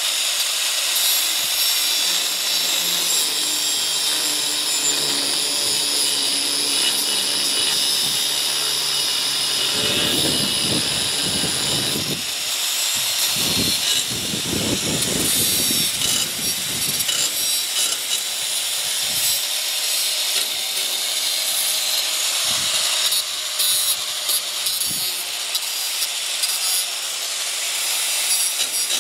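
Electric angle grinder cutting into the steel lip of a trailer ball coupler: a steady high motor whine with a rasping grinding hiss, rougher and heavier between about ten and seventeen seconds in as the disc bites harder.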